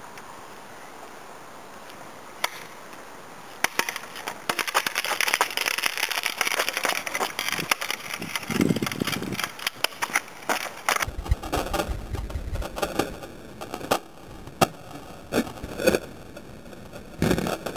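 Handling noise from a handheld camera: a faint hiss, then dense crackling and rubbing from about four seconds in, a low rumble near the middle, and scattered sharp knocks toward the end.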